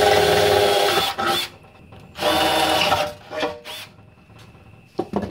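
Cordless drill running in two bursts of about a second each, drilling out the leftover casings of old pop rivets from the mower deck's holes. A short click follows near the end.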